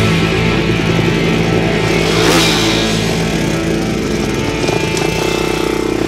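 Pit bike engine running, heard under distorted rock music.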